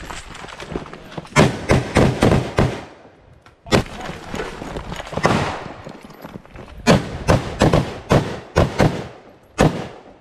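Rifles fired on a live-fire range in quick strings of shots about a third of a second apart: about five shots a second and a half in, a single shot near four seconds, then about seven more from about seven seconds in. Each shot is sharp and loud, with a short echo after it.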